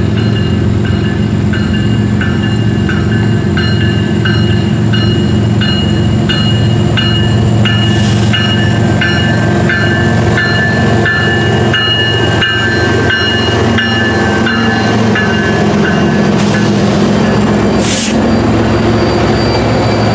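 A train rolling past at close range: a loud, steady low rumble with a beat of about two a second from the wheels, and steady high metallic ringing tones. There are two short sharp noises, about eight seconds in and again near the end.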